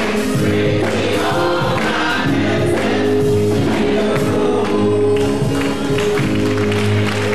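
Gospel choir singing with keyboard and drum accompaniment, the voices and bass holding long sustained notes over regular drum strikes.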